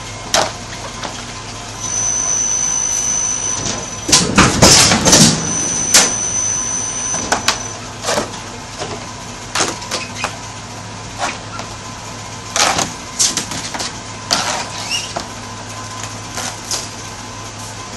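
Flatbed die-cutting press running with a steady low hum, while stiff plastic sheets are slapped, rustled and clacked as they are laid on and pulled off the cutting bed. A thin high whine comes in for a few seconds about two seconds in.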